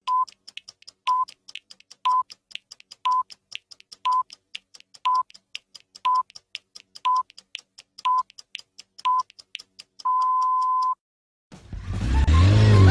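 Countdown beeps: ten short electronic beeps at one pitch, one a second, with faint quick ticking between them, then a longer final beep of about a second. After a brief gap a loud sound with bending pitch starts near the end.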